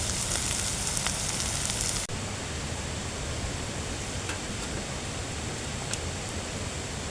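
Steady rush of running water. The bright hiss drops away abruptly about two seconds in, and a few faint ticks follow.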